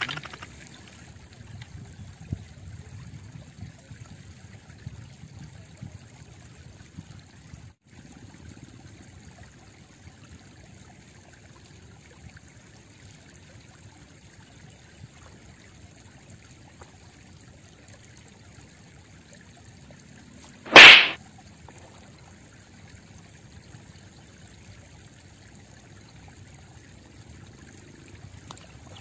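Gentle river water trickling and lapping at a stony bank, a soft steady wash. About two-thirds of the way through, one brief, loud, sharp sound cuts across it.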